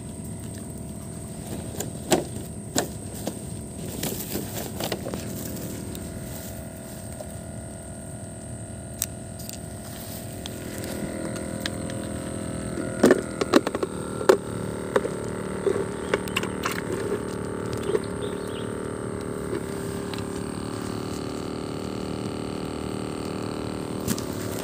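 Short clicks and knocks of hands handling a plastic bait tub and fishing rod, the loudest cluster about halfway through, over a steady background hum.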